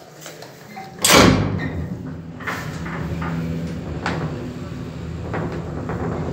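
A 1960 Radnik elevator starting off with a loud clunk about a second in, then its machinery humming steadily as the car travels, with a few faint knocks along the way.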